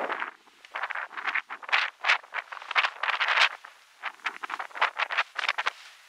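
Gusty wind with irregular rustling, coming and going in quick bursts.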